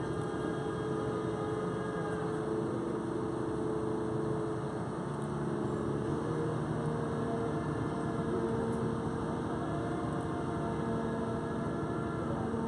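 Mobile crane's engine running steadily as its boom is raised, its tone shifting slightly about halfway through.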